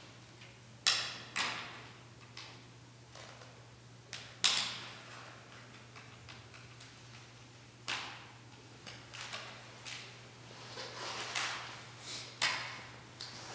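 Handling noise from a large textured sheet being pressed and smoothed by hand: separate sharp crackles and rustles, a few seconds apart with a small cluster near the end, over a faint steady low hum.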